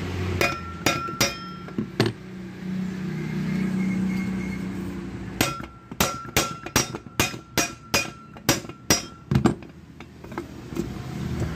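Hammer blows on the steel shell of a refrigerator hermetic compressor along its freshly cut seam, knocking the lid loose; each strike rings metallically. Four blows come in the first two seconds. After a pause with a low steady hum, a quick run of about a dozen blows follows at roughly three a second.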